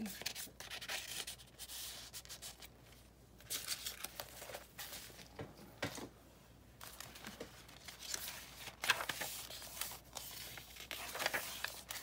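Paper rustling and scraping in short, irregular spells as a paper tag is slid into a paper pocket and the junk journal's pages are handled and turned.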